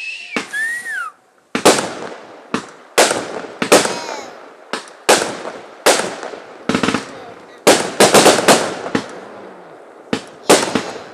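Fireworks going off in a rapid string of sharp bangs, roughly two a second, each trailing off in a short echo.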